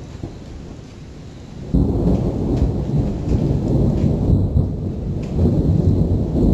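Thunder during an electrical storm: a faint low rumble, then a little under two seconds in a loud, deep rumble of thunder starts suddenly and keeps rolling.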